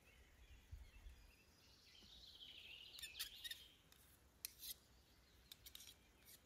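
Faint metal clicks and a short scraping rasp of a utensil working in a cooking pot of potatoes and lard. The clicks come scattered and irregular.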